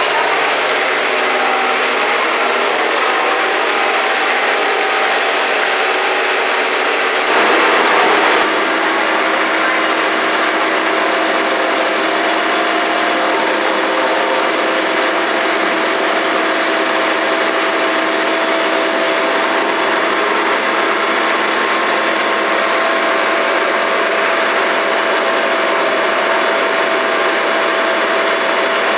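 Toyoda CNC lathe running: a steady, loud machine hum with several constant whining tones, briefly louder for about a second some seven seconds in.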